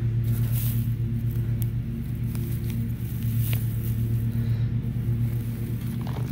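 A low, steady hum from a running motor, slightly pulsing, with a few faint scrapes of a hand digging in dry soil.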